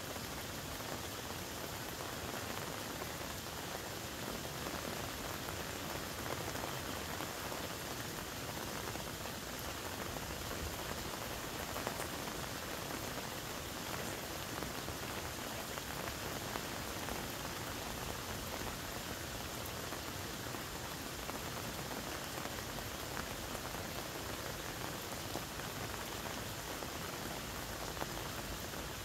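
Falling water pattering steadily, like rain on a surface, without a break.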